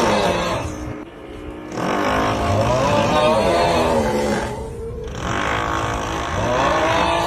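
A drawn-out, wavering 'uuuuugghhh' groaning snore sound, a meme voice effect, in long groans broken by short pauses about a second in and about five seconds in. Under it runs a rough, steady drilling noise.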